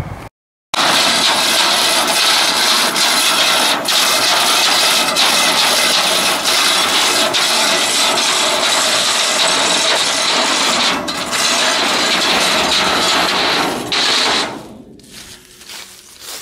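Winch pulling a pickup truck up onto a steel flatbed trailer by chain: a loud, steady grinding noise with a few sharp clicks, cutting off suddenly near the end as the truck comes to rest on the trailer.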